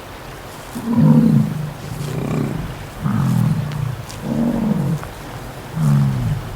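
An animal giving a series of low calls, about five of them, roughly one a second.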